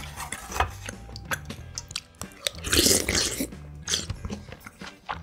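Close-miked eating of spicy ramyun: wet chewing with many small mouth clicks, and a loud slurp of broth from a wooden spoon near the middle.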